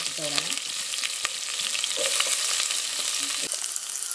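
Freshly added sliced onions frying in oil in a saucepan: a steady sizzle with many small crackles.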